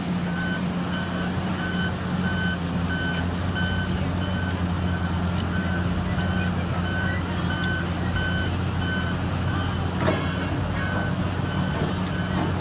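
Reversing alarm of a heavy construction vehicle beeping at an even pace over a diesel engine running steadily, with a sharp knock about ten seconds in.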